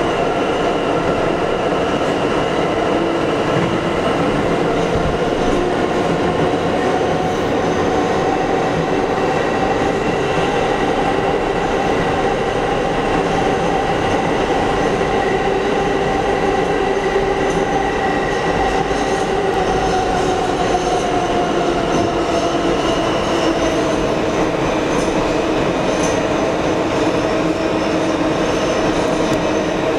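R160 subway train running at speed through a tunnel, heard from inside the car: steady wheel and track noise under the whine of the propulsion. The whine's pitch edges up through the first half and eases back down past the middle.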